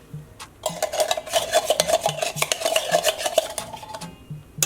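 A spoon scraping and clinking rapidly against a container with a ringing tone, starting about a second in and stopping shortly before the end, while condensed milk is added to the coffee jelly mixture.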